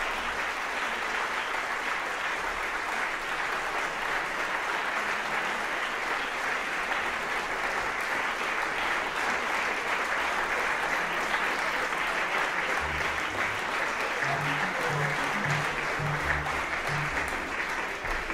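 Audience applauding steadily. From about two-thirds of the way through, a few short low instrument notes sound under the clapping.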